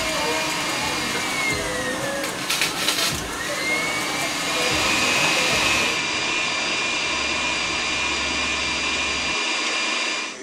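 KitchenAid stand mixer running with its wire whisk beating egg whites into meringue for soufflé pancakes: a steady motor whine that drops in pitch and climbs back up a few seconds in, with a brief clatter in between.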